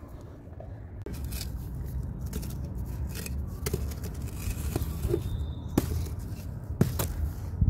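Bucket-molded gritty sand blocks being broken and knocked over by hand: gritty scraping and crumbling over a low rumble, with a few sharp cracks and the loudest thuds near the end as blocks topple and break apart.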